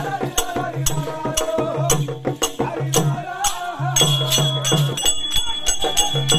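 Therukoothu (Tamil street-theatre) ensemble music: a steady beat of sharp percussive strikes, about two to three a second, over low pulsing tones and a wavering melody line, with a high note held through the second half.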